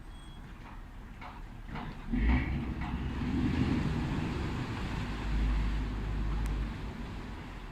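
Motor ship's engine running under way, a low rumble that swells about two seconds in and eases off near the end.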